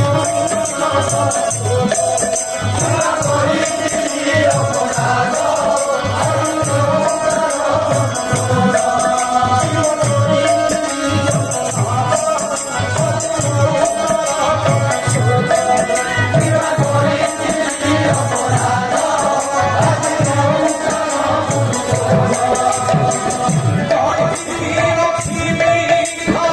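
Kirtan devotional music: a group of voices singing over a held melody line, with a drum beating a quick, repeating rhythm and small jingling percussion throughout.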